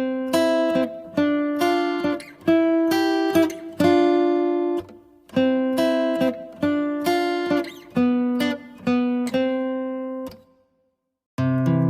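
Guitar playing an arpeggio, single notes plucked one after another, several a second, each ringing on under the next. It stops about ten seconds in, and after a short silence another arpeggio starts just before the end.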